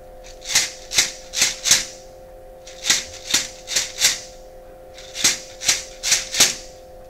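Shekere, a beaded gourd rattle, shaken in a repeating 'shek-e-re, shake' rhythm: three phrases of four sharp rattling strokes, each phrase starting about every two and a third seconds.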